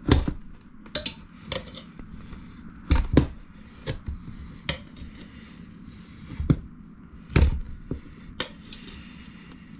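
Metal tire spoons clinking and scraping against a dirt bike wheel rim while levering the tire bead onto it. Irregular sharp metallic clinks, a few close together around three seconds in and again around seven and a half seconds.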